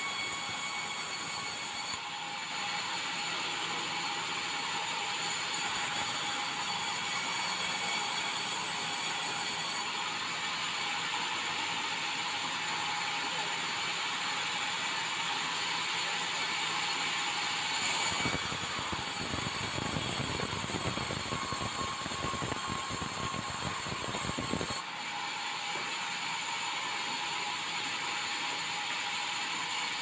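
Sawmill saw running and ripping bengkirai hardwood planks: a steady mechanical din with high ringing tones. It changes abruptly several times, and a deeper rumble joins for several seconds after the middle.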